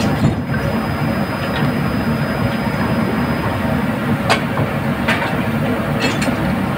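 Steady, loud drone of drilling-rig machinery on the drill floor, with several sharp metal clanks about four to six seconds in as the crew lift the steel pipe slips out of the rotary table and set them down on the deck.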